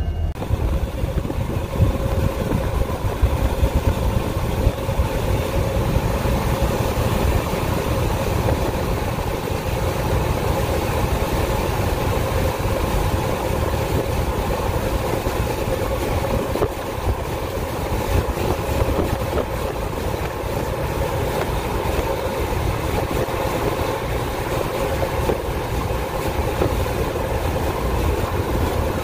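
Freight train of tank cars and autorack cars rolling past: a steady, loud rumble with wheel and rail noise.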